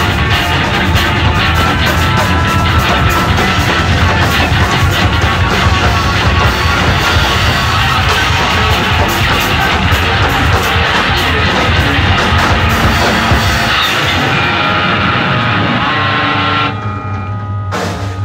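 Noise-rock band playing loud, dense distorted electric guitars over drums. A few seconds before the end the playing stops, leaving a steady low hum.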